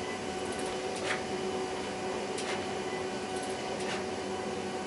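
HP Designjet 5000ps large-format inkjet printer printing: a steady mechanical hum with a short swish about every second and a half as the print head makes its passes.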